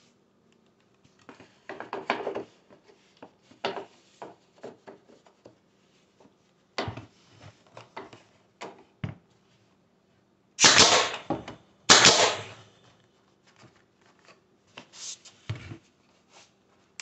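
Pneumatic nailer, driven by an air compressor, firing twice into baseboard trim: two loud shots about a second apart, each lasting about half a second. Lighter knocks and clicks come before and after as the small trim piece is handled and set in place.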